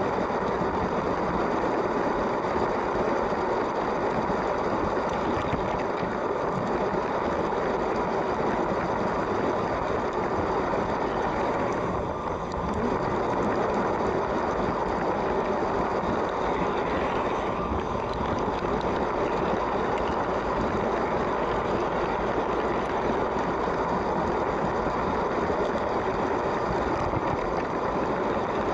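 Lego train running along its track: a steady whir of the small electric motor mixed with the rolling clatter of plastic wheels on plastic rails, dipping briefly a little under halfway through.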